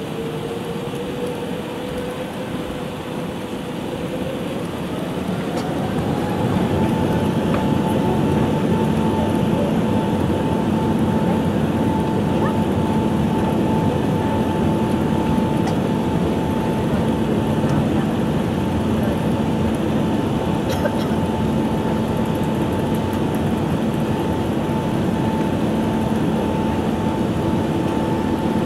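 Airbus A380 engines heard from inside the cabin. They spool up with a whine that rises in pitch about five seconds in, then hold a steady, louder pitch over a constant cabin rumble.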